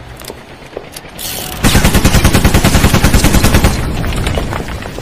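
A loud, rapid mechanical hammering rattle, a quick even string of sharp blows, starts about a second and a half in. It keeps going for about two seconds, then dies away.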